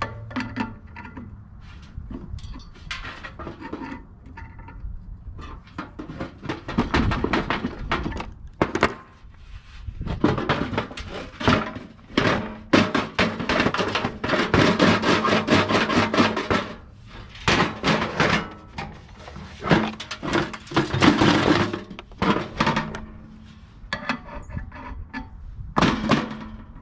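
Bursts of quick scraping strokes: sandpaper worked on a blower motor's shaft, with knocks against the sheet-metal blower housing. The shaft is being cleaned so the blower wheel's hub can slide off it.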